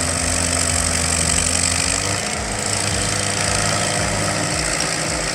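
Heavy machine's engine running steadily, with a hum whose pitch rises slightly about two seconds in.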